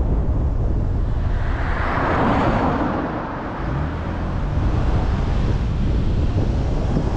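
A vehicle passing by on the street: its hiss swells and fades over about two seconds. Steady low wind rumble on the microphone runs underneath.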